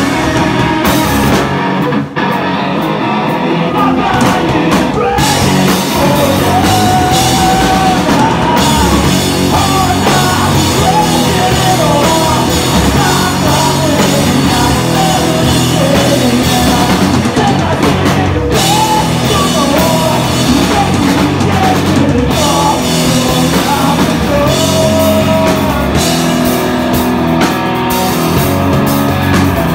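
Rock band playing loud: drum kit and guitars with singing over them, broken by a split-second stop about two seconds in.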